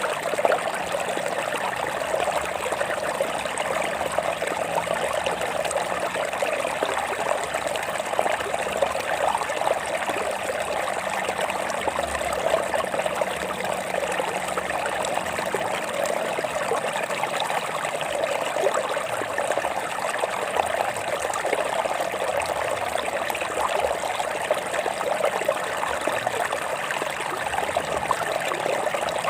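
Water of a stream running over rocks, a steady babbling and trickling.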